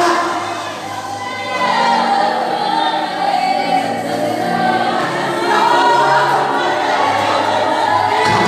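Gospel song sung by a group of voices together, with long held notes.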